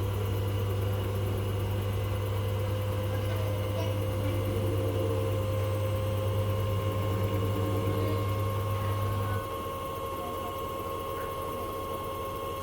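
Repaired Hoover appliance's motor running and turning its drum: a steady low hum with a few higher steady tones, which drops to a quieter hum about nine seconds in.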